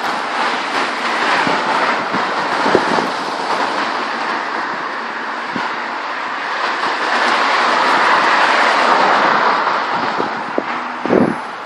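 Gale-force wind rushing steadily, swelling into a stronger gust about two thirds of the way through, with a few scattered knocks and rattles.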